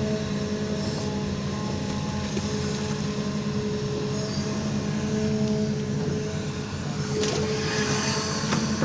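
Amphibious excavator's diesel engine running steadily, with a steady whine over it and a few knocks near the end.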